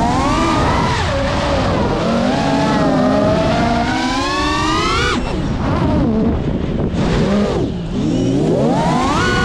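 Geprc Mark 5 FPV quadcopter's motors and propellers whining, the pitch rising and falling with the throttle. The whine climbs through the first half, drops abruptly a little past halfway, and rises again near the end.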